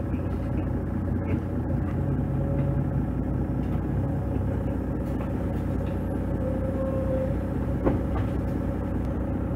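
Diesel engine of a Mercedes-Benz O530 Citaro city bus running steadily at idle, heard from inside the passenger cabin, with a single sharp knock near the end.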